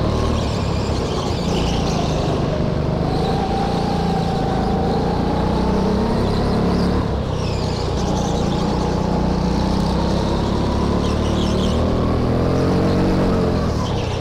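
Indoor go-kart engine heard from onboard the kart, running continuously at racing speed, its pitch rising and falling gently as the driver lifts and accelerates through the corners.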